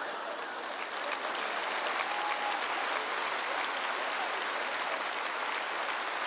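A large audience applauding steadily: dense, even clapping throughout.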